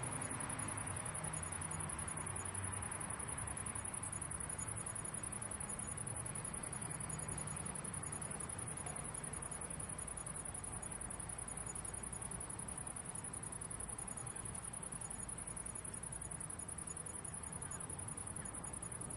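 Crickets chirping steadily at a high pitch, over a low, constant rumble of city background noise.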